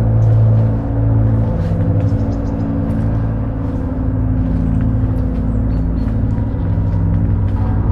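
Dark ambient music: low, sustained droning tones that swell and hold steadily.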